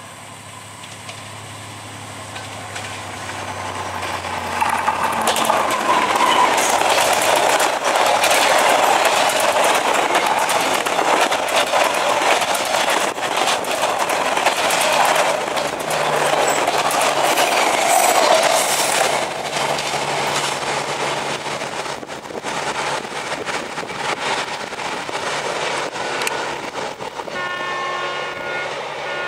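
Diesel locomotive passing close by, its engine hum building as it approaches, then the loud rattle and rapid clicking of freight boxcar wheels over the rail joints as the wagons go past, easing off over the last third. A short high-pitched tone sounds near the end.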